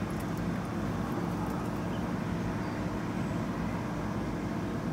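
Steady low background rumble with a faint even hum, and a few faint clicks in the first two seconds.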